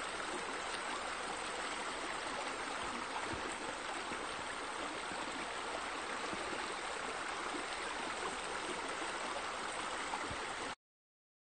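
Steady rushing and splashing of running water from pool bubblers and a spa spillover, which cuts off abruptly about a second before the end.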